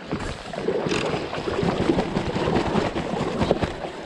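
River water lapping and slapping against the tubes of a Water Master Kodiak inflatable raft, with wind noise on the microphone.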